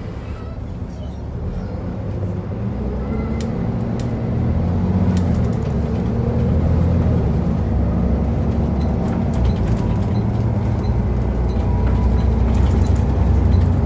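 Volvo B7TL double-decker bus's rear-mounted six-cylinder diesel engine heard from inside the lower deck, growing louder over the first few seconds as the bus picks up speed, then running steadily. A few clicks and rattles from the bus interior come through early on.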